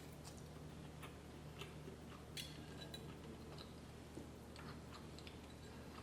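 Faint chewing while eating lamb steak: scattered soft mouth clicks and smacks, about half a dozen, over a low steady hum.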